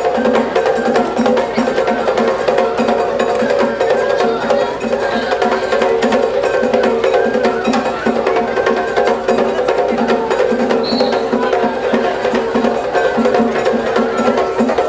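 Traditional Japanese festival music, percussion-led, with a steady knocking beat of about two to three strokes a second over held tones.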